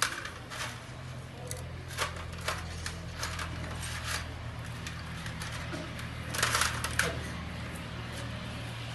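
An engine running steadily at idle, a low even hum, with scattered clicks and metallic clatter on top; the loudest clatter comes about six and a half seconds in.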